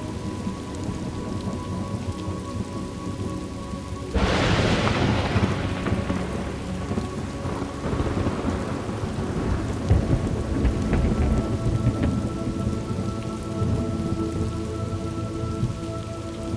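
Thunderstorm: steady rain with a sharp thunderclap about four seconds in that rolls away over a couple of seconds, and a further rumble near ten seconds.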